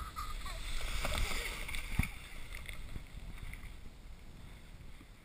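Sled sliding downhill over packed snow: a steady rumbling, scraping noise from the runners, with a single knock about two seconds in.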